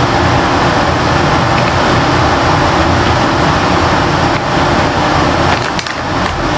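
Steady, loud rushing noise with a brief dip about six seconds in.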